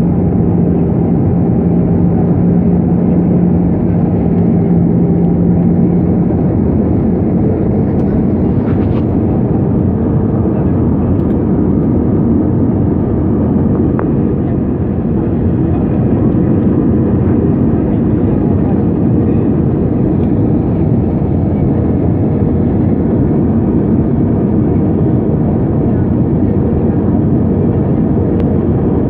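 Airbus A320-212 engine and airflow noise, a loud steady rumble, with a low hum that stops about six seconds in.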